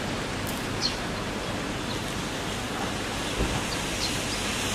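Steady hiss of rain and wind, with a brief low thump about three and a half seconds in.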